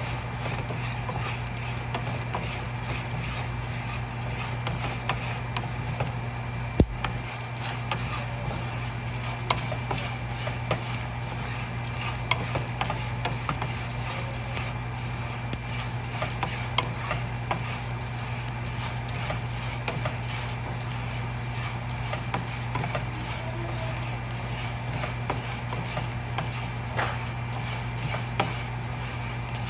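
Wooden spatula stirring and scraping pumpkin seeds around a dry frying pan as they roast, a steady rattle of many small clicks with one sharper click about seven seconds in, over a steady low hum.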